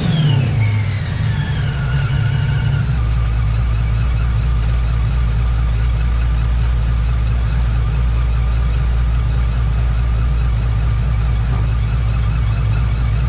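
SRT Hemi V8 with a Whipple 2.9 L supercharger and aftermarket cam coming down off a rev, with a high whine falling with the revs. About three seconds in it settles into a steady idle.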